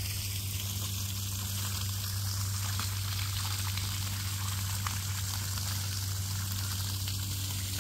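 Water running and trickling steadily, with a steady low hum underneath.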